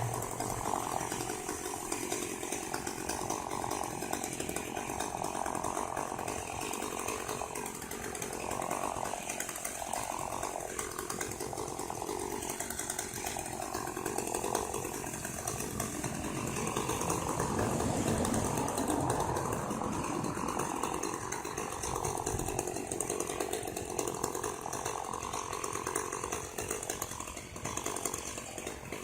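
Chainsaw running steadily, its engine pitch wavering.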